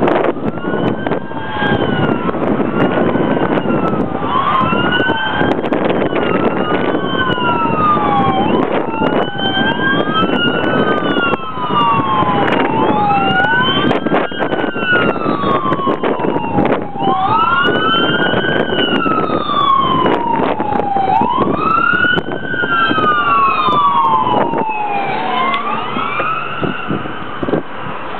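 Ambulance siren wailing, each cycle a quick rise and a slower fall in pitch about every three seconds, over road traffic noise; it grows fainter near the end.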